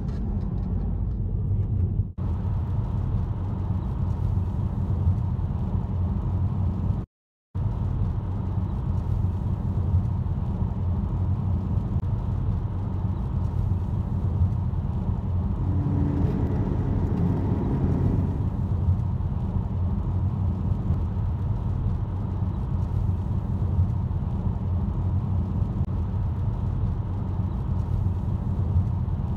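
A car driving, heard from inside the cabin: a steady low rumble of engine and tyre noise, which cuts out completely for a moment about seven seconds in.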